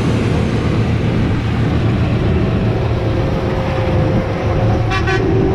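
Engine of a large harvest machine running steadily with a low rumble. A short rattle comes about five seconds in.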